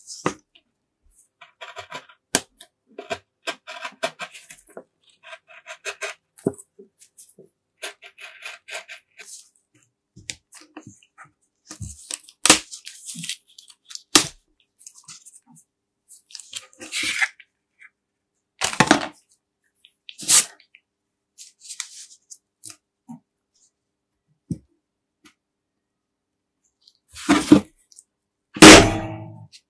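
Scattered small clicks, taps and scrapes of hand work on metal horn parts. Near the end the restored electric car horn sounds in short, loud buzzing blasts.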